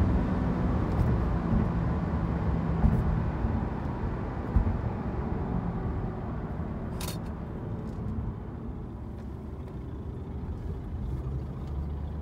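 2016 Subaru Legacy heard from inside the cabin, its engine and tyre noise dropping away as the car slows after a drag-strip run. A single sharp click about seven seconds in.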